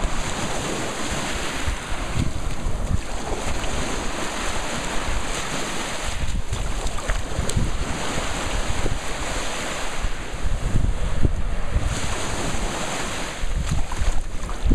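Small Lake Michigan waves washing up over the sand at the water's edge and running back, with wind rumbling on the microphone.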